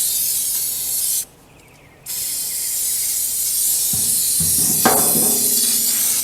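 Paint being sprayed onto steel rods from a spray can: a hissing burst that stops after about a second, then a longer burst starting about two seconds in.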